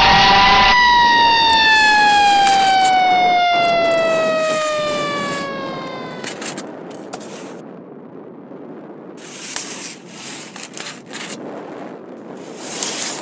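A fire truck siren holds its tone, then winds down, falling slowly in pitch and fading out over about five seconds. Snow shovels scrape across snowy pavement in short strokes, alone once the siren has died away.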